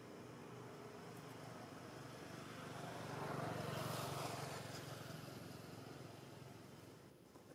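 A motor vehicle passing by, growing louder to a peak about halfway through, then fading away.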